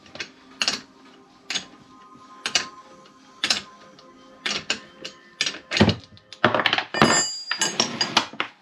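Background music with a slow, steady beat of about one knock a second. Near the end come a cluster of louder knocks and clatter, as metal parts and tools are handled and set down on a wooden workbench.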